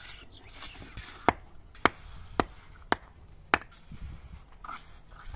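Five sharp, ringing knocks in an even rhythm, about two a second, struck against something hard.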